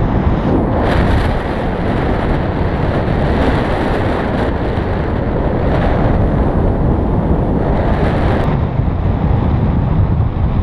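Loud, steady wind noise buffeting the microphone of a camera carried in paraglider flight, with a brighter hiss from about a second in that drops away sharply near the end.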